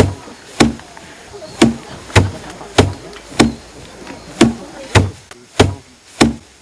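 Rice stalks being beaten against a wooden threshing bin to thresh the grain: steady, heavy whacks at about two a second, each a low thud with a sharp crack, with a brief pause after every three or four strokes.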